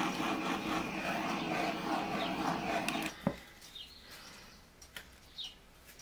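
A steady, fast-pulsing mechanical hum, about five pulses a second, cuts off suddenly about three seconds in, followed by a click. After it come a few faint, short high chirps like a small bird's.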